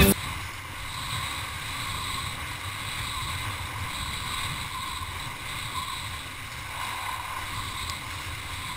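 A kiteboard skimming across choppy water, with wind rushing over a helmet-mounted camera's microphone: a steady rushing noise with a low rumble.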